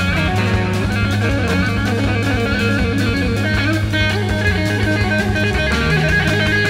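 Live rock trio playing an instrumental passage: electric guitar leads over bass guitar and drum kit.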